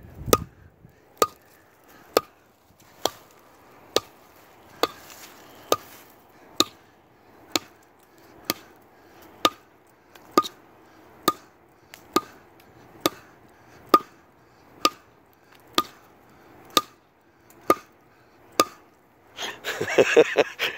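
Axe blows chopping into a hard log, a steady rhythm of sharp strikes about one a second, around twenty in all. A person's voice breaks in briefly near the end.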